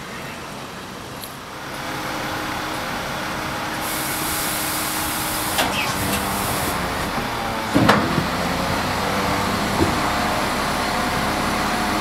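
Heavy lorry's diesel engine running steadily. It grows louder about two seconds in, a hiss of air runs for a few seconds from about four seconds in, and there is a sharp clank near eight seconds in.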